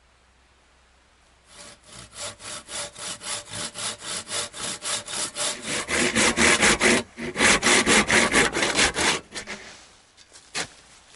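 Hand saw cutting through a wooden pole in steady back-and-forth strokes, about three or four a second. The strokes get louder about halfway, break off briefly, resume, then stop; a single sharp click follows near the end.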